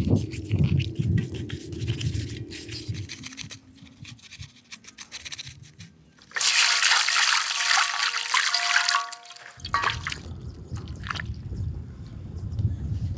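Wet scrubbing and handling of a roasted pork head in a metal wok with a soapy sponge, with small clicks and rubbing. About six seconds in, a sudden loud rush of water, pouring and splashing for about three seconds, then low wet handling noise again.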